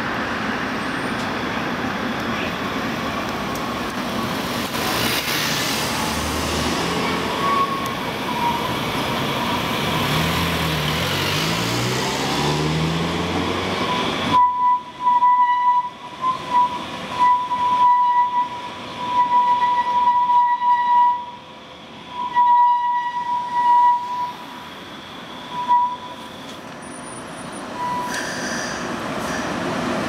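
Breda articulated light-rail car rolling slowly through a tight curve, the first half a steady rushing noise. About halfway through, the noise drops and a high, steady wheel squeal comes and goes for about ten seconds as the steel wheels grind around the curve.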